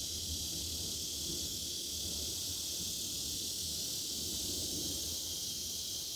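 Chorus of cicadas, a steady high-pitched buzz that holds level without pause.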